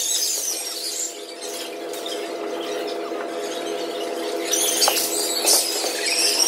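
Sneakers squeaking on a hardwood gym floor, short high squeals scattered through, over a steady hum.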